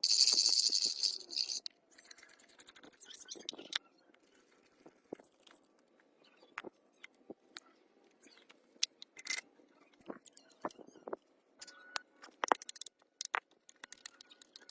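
Workshop work on metal parts: a short hiss at the start, then scattered clinks, knocks and scraping of tools and parts.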